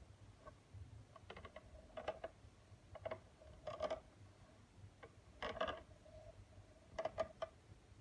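Light clicks and taps in about six short clusters, spread unevenly, over a faint steady hum.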